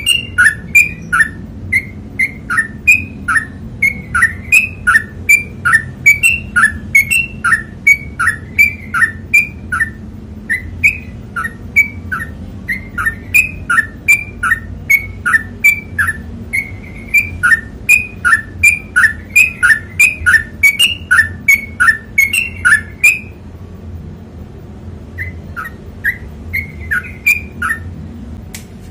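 Yellow-vented bulbul (trucukan) singing a long run of quick repeated notes, about two a second, breaking off a little over 20 seconds in and starting again briefly near the end.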